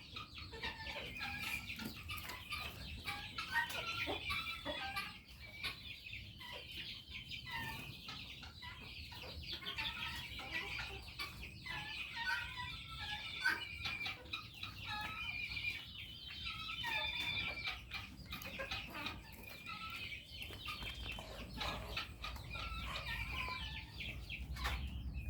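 Chickens clucking, with a steady flurry of many short, high-pitched calls throughout.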